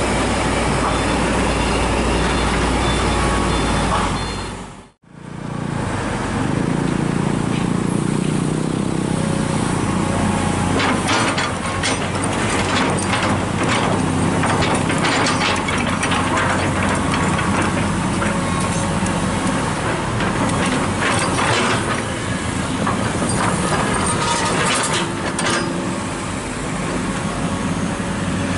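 Komatsu hydraulic excavator's diesel engine running, cutting out abruptly for a moment about five seconds in. From about ten seconds on, many sharp knocks and clanks sound over the engine.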